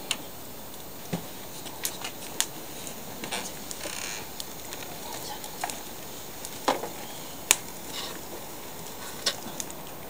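Wood fire crackling in a small metal stove: a handful of sharp pops and snaps over a faint steady hiss, the loudest snap about seven and a half seconds in.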